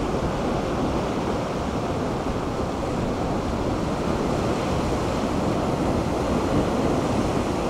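Ocean surf washing against the rocks below, a steady rush, mixed with wind on the microphone.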